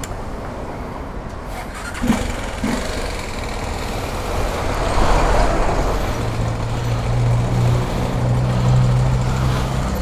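Honda XR 250 Tornado's single-cylinder engine running through its stock exhaust, with traffic around it. There is a short knock about two seconds in, and a steady low engine note comes in about six seconds in as the sound grows louder.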